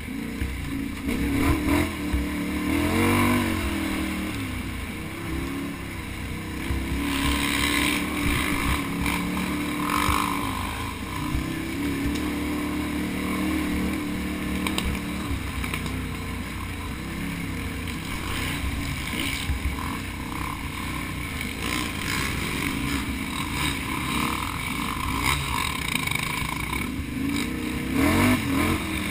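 Can-Am Outlander XXC ATV engine running hard on a racecourse, heard close up, its revs rising and falling again and again as the rider throttles on and off.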